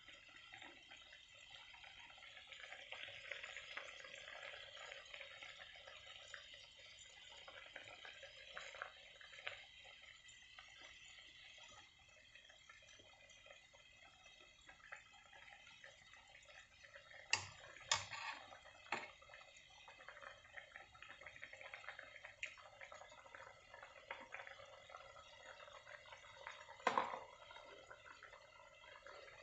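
Curry sauce simmering in a frying pan, faint bubbling and popping, with a few sharp clicks about two-thirds of the way through and again near the end.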